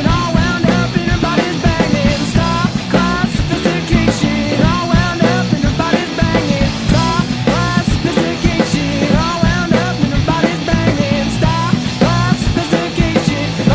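Indie rock song playing: a full band with guitar and drums over a steady beat.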